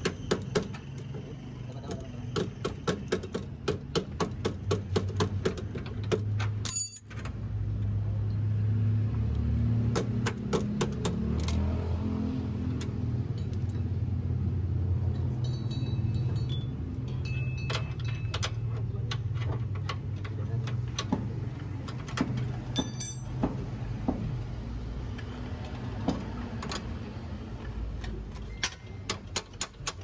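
Ratchet wrench clicking in quick repeated strokes, with metal tools clinking, as suspension bolts under the car are worked. A steady low hum runs underneath.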